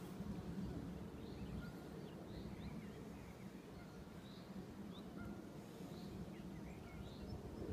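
Birds chirping here and there, short scattered calls over a steady low outdoor rumble.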